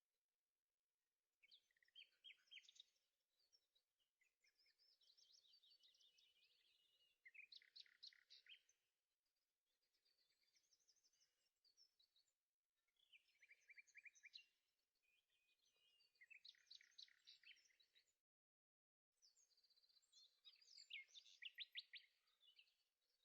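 Faint birdsong: short phrases of rapid trills and chirps, each a second or two long, repeated every few seconds, with a brief gap about 18 seconds in.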